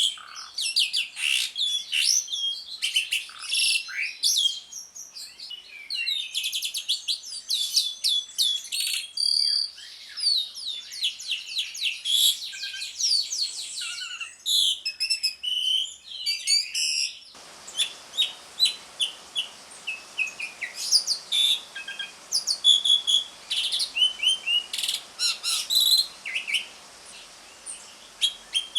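Jalak suren (Javan pied starling) chattering in a fast, dense run of high chirps and whistles, the rapid 'ngriwik' call. About two thirds of the way in the background changes to a steady hiss and the calls come more spaced.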